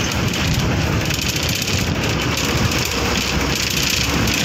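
Steady rumble and hiss of a moving vehicle's engine and road noise, heard from on board.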